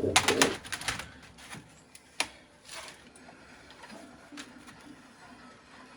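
Plastic computer keyboard being handled, its keys clattering for about a second, then a sharp click about two seconds in and a few lighter knocks, over a faint steady hum.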